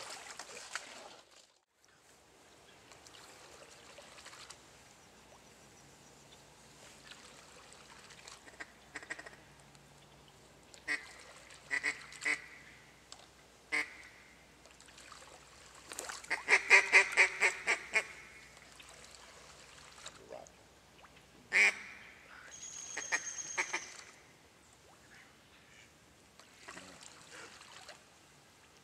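Mallard-style duck quacking: scattered short quacks, a fast run of about ten loud quacks around the middle, and a sharp single loud call a few seconds later.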